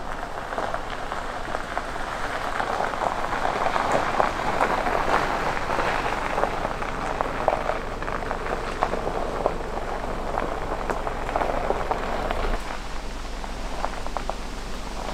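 Land Rover Defender's tyres rolling slowly over gravel, with a steady crackling crunch of stones under the wheels. The crunching is thickest in the middle and eases off near the end.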